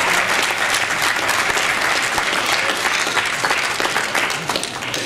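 Audience applauding, many hands clapping, dying down near the end.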